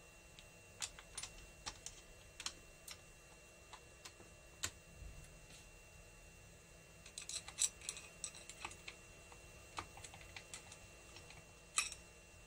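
Scattered light metallic clicks and taps of hand tools against the steel gears and selector parts of a D50B0 engine's gearbox, with a quick run of clicks about seven seconds in and a sharp click near the end.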